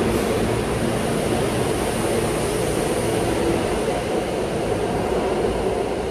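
Steady running noise of a moving transit car heard from inside, a low rumbling hum with a thin high whine over it.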